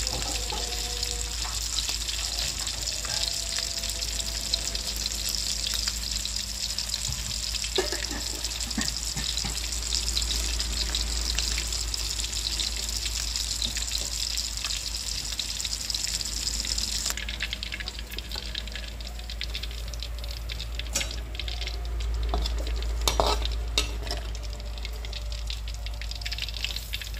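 Tuna chunks deep-frying in oil in a wok, a steady sizzle whose high hiss thins abruptly about two-thirds of the way through. In the last few seconds a metal spatula clicks and scrapes against the wok as the fried fish is lifted out.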